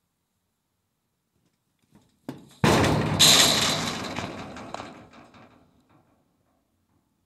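A sudden loud bang, with a second, louder hit about half a second later, echoing and dying away over about three seconds; a small click comes just before it.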